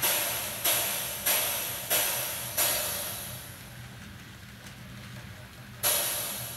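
Background music: cymbal crashes with long hissing decays about every two-thirds of a second, stopping about three seconds in, then one more crash near the end.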